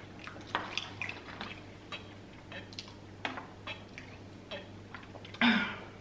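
People drinking water from plastic bottles: gulps and swallows with scattered small clicks and crinkles of the bottles. A louder short sound comes about five and a half seconds in.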